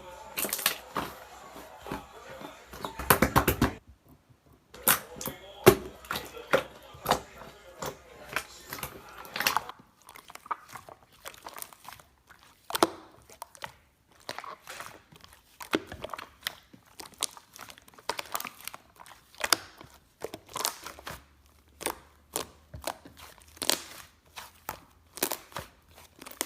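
Slime being squeezed, stretched and folded by hand, giving irregular sticky clicks, pops and crackles, with a brief pause about four seconds in.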